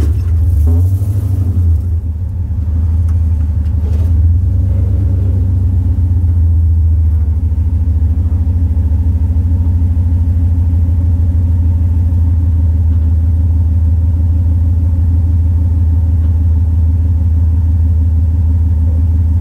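Off-road vehicle's engine running steadily at a low, even rumble, heard close up from a hood-mounted camera while the vehicle sits on a steep rock climb.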